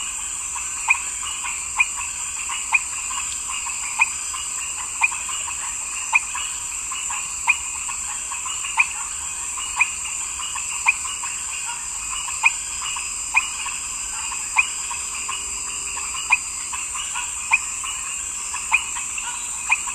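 A frog calling with short, sharp croaks about once a second, over a steady high-pitched background hiss.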